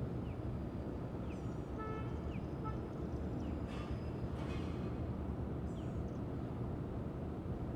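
Street ambience: a steady rumble of traffic, with a few faint high chirps and a short high toot about two seconds in.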